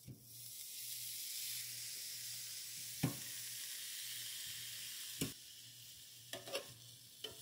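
Frozen beef patties hissing and sizzling faintly as they are laid with metal tongs into a preheated air fryer basket; the hiss fades about five seconds in. Sharp clicks of the tongs against the basket come about three and five seconds in, with a few lighter ticks near the end.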